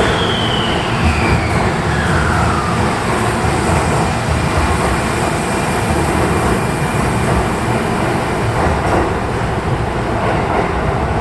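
Electric commuter train moving through an underground station, a loud steady rumble throughout. A motor whine falls in pitch over the first three seconds or so, as the train slows.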